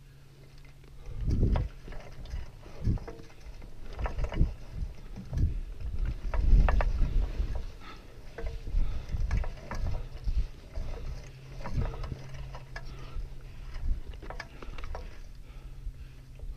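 Skis scraping and sliding on steep snow in short, irregular bursts about once a second, mixed with wind buffeting and handling knocks on a pole-mounted camera's microphone, over a faint steady low hum.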